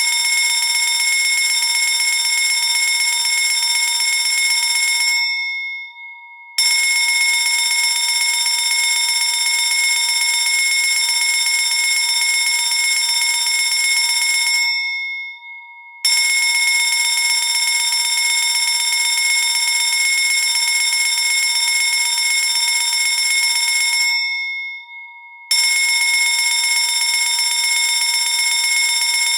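Electric fire alarm bell ringing loudly and continuously, one steady clanging ring. Three times it stops and dies away for about a second, then starts ringing again.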